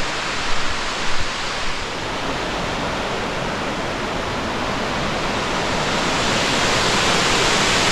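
Steady rushing roar of the McCloud River's Middle Falls running full, with two soft bumps in the first second and a half and the rush growing a little louder over the last few seconds.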